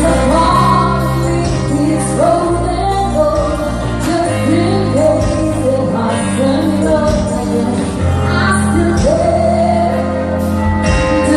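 Live band playing a pop ballad: a woman singing long, held lines into a microphone over electric guitar, keyboards and bass.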